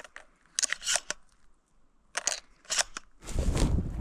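A few short crunches and rustles from steps in dry fallen leaves and from handling of the chest-mounted camera rig and gun sling. About three seconds in, a heavier, continuous rustling and rubbing starts close to the microphone.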